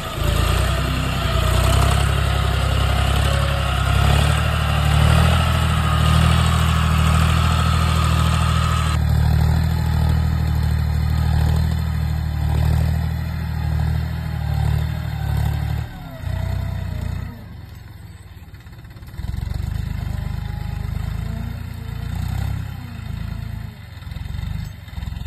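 John Deere 5055E tractor's diesel engine running, loud and steady. About two thirds of the way through it drops and becomes fainter and uneven.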